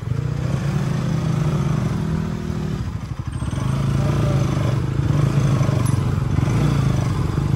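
Motorcycle engine running at low road speed, easing off briefly about three seconds in and then pulling steadily again.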